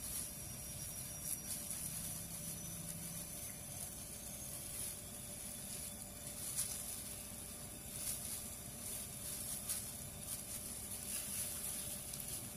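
Faint, irregular crackles and rustles of a plastic glove handling dry fried chicken intestines as they are threaded onto a bamboo skewer, over a low steady hiss.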